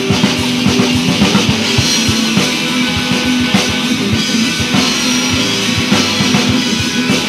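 Live rock band playing: a drum kit keeps a busy beat with bass drum and cymbals under electric guitar and bass guitar.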